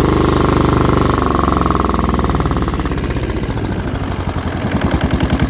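Yanmar 1GM single-cylinder marine diesel running after an overhaul, its revs falling back from a faster speed about a second in and settling to idle, where the separate firing beats become distinct near the end.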